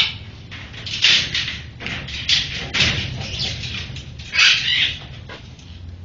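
Macaws screeching in an indoor aviary: several short, harsh calls, the loudest about a second in and again after four seconds.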